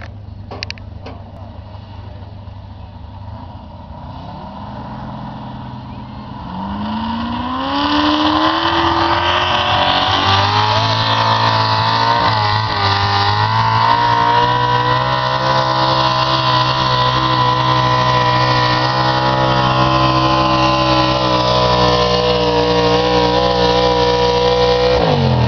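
Pulling pickup truck's engine at full throttle dragging a weight-transfer sled: the engine note climbs steeply about seven seconds in as the truck gets going, then holds loud and high at full revs under load for the rest of the pull.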